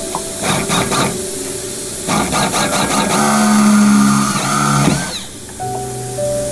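Power drill boring a rivet hole through the sheet-metal doubler and aircraft skin. A few short bursts come first, then the drill runs with a steady whine for about three seconds and stops about five seconds in.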